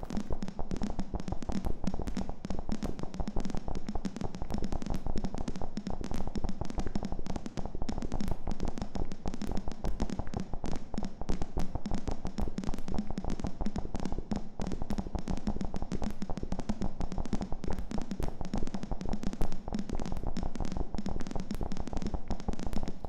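Electronic crackles synthesized in Native Instruments Reaktor: a dense, irregular stream of clicks and pops over a steady low hum.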